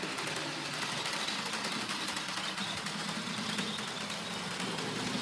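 Rivarossi HO-scale diesel locomotive running on track, its small electric motor and gears making a steady hum that slowly grows louder as it picks up speed on momentum, with faint clicking from the wheels on the rails.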